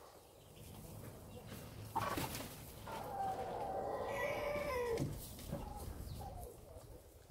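A chicken's long drawn-out call of about three seconds, dropping in pitch as it ends, followed by a couple of short fainter notes.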